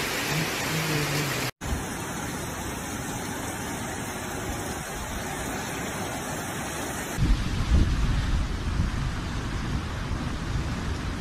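Heavy rain falling steadily, with a brief break about a second and a half in. About seven seconds in it gives way to strong gusty wind buffeting the microphone as storm waves break against a seafront.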